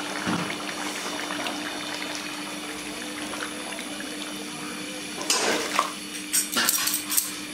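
Fish curry simmering and bubbling in a pot, then several loud knocks and scrapes about five seconds in.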